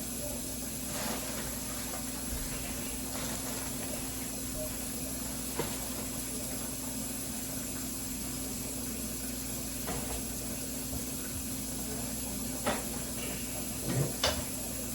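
A steady background hum with a few scattered light knocks and clicks from kitchen items being handled during cleaning, two of them close together near the end.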